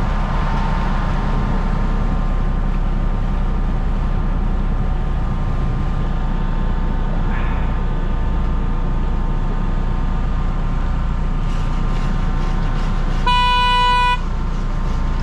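Crab-fishing boat's engine running steadily, with a steady high whine over it. Near the end a horn sounds once, a short blast of under a second.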